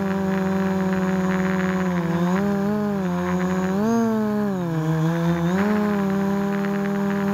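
Quadcopter's electric motors and propellers whining steadily through its onboard camera. About two seconds in the pitch starts to waver, climbs near the middle, dips, then settles back to its steady note as the motors speed up and slow down.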